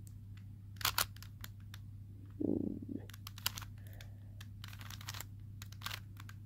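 Plastic clicks and clacks of a 3x3 smart cube being turned by hand, scattered and irregular, with a short, louder muffled rustle about two and a half seconds in. A faint steady low hum sits underneath.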